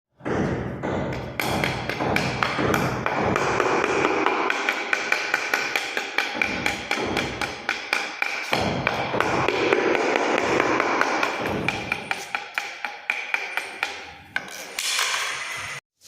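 Quick repeated tapping on a hard surface, the strokes coming faster and more evenly near the end, with a faint steady tone behind them.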